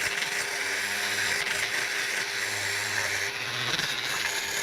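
Small handheld power tool running steadily with a rough scrubbing hiss as it cleans corrosion off the metal hose spigots of a motorcycle water pump.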